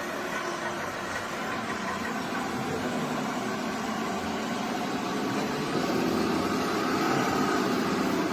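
Remote-controlled scale construction machines running, a steady engine-like drone that gets a little louder about six seconds in.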